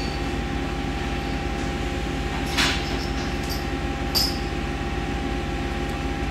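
Steady background hum, with two light clicks of small metal parts being handled, about a second and a half apart midway through.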